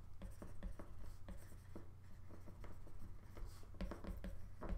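Stylus writing on a tablet's glass screen: an irregular run of quick, light taps and scratches as words are handwritten.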